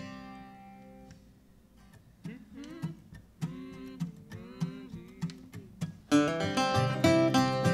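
An acoustic guitar chord rings out and fades, then a guitar picks a slow line of single notes that slide up into pitch. About six seconds in, two acoustic guitars come in together, strumming much louder as the song begins.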